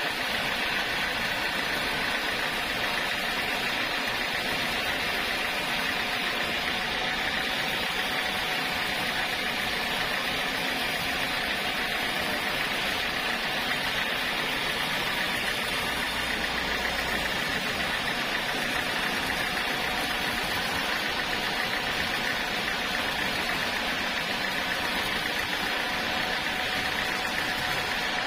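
Sawmill machinery running steadily, an even mechanical noise with a faint steady high hum and no breaks.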